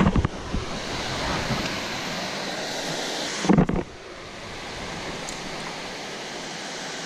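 Steady rushing of floodwater, with a few knocks at the start and a short loud sound about three and a half seconds in, after which the rush is quieter.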